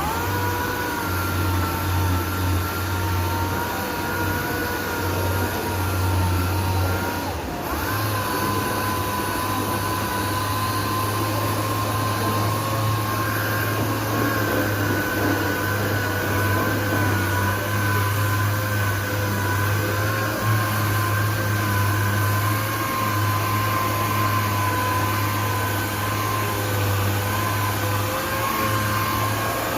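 Power sander running steadily as it sands epoxy primer on a car's side panel, with a steady hum and a high whine. It stops for a moment about seven and a half seconds in, then runs on.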